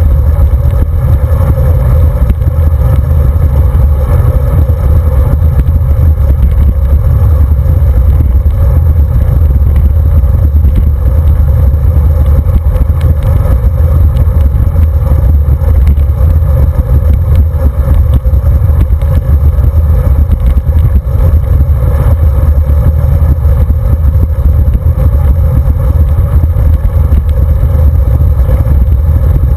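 Loud, steady wind rumble on the handlebar camera's microphone, together with road and tyre vibration, as a road bicycle rolls along asphalt at speed.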